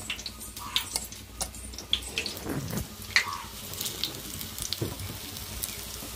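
Batter-dipped ajwain (vamu) leaf bajjis deep-frying in hot oil: a steady sizzle with irregular crackles and pops.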